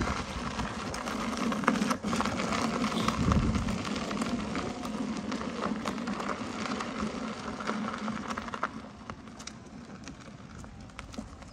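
Electric unicycle rolling along a gravel path: the tyre crackles and crunches over the gravel above a steady low hum, getting quieter after about nine seconds.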